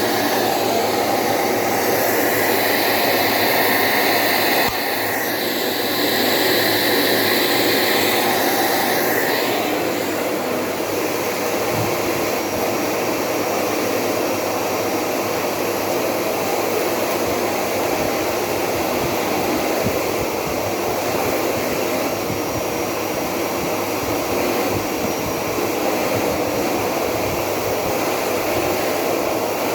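Philips 7000 series cyclonic vacuum cleaner running steadily with a whooshing air noise. Its sound shifts about five seconds in, and near ten seconds in the high hiss drops away, leaving a steadier lower hum.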